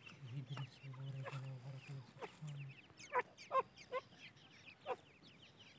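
Grey francolin chicks peeping: many short, high, downward-falling peeps, the loudest ones about three seconds in.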